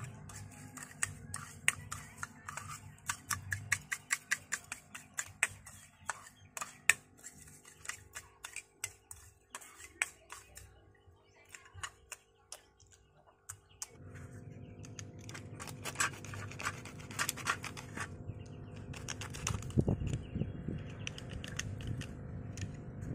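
A metal spoon stirring a thick sauce in a bowl: a quick run of clinks and scrapes, about three a second, that thins out later. Partway through, a low steady background hum comes up under further scattered clicks.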